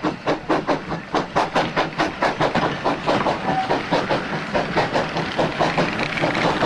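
Ex-Port Talbot Railway GWR 0-6-0 saddle tank No. 813 working a train, its exhaust beating about five times a second. The beats grow less distinct in the second half as the engine draws away, and the coaches' wheels roll past on the track.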